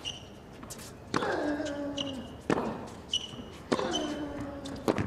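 Tennis rally on a hard court: four racket strikes on the ball, about one every 1.2 seconds. A player grunts with a falling pitch on every other stroke, and short shoe squeaks come between the shots.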